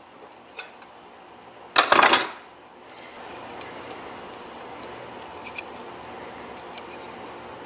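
A metal spatula prying a freshly printed plastic part off a 3D printer's print bed: a faint scrape and click, then a sharp clatter of several quick clicks about two seconds in as the part breaks loose.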